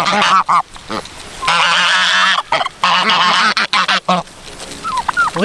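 A group of Sebastopol geese honking over one another in loud, crowded bursts: one right at the start and a longer one about a second and a half in.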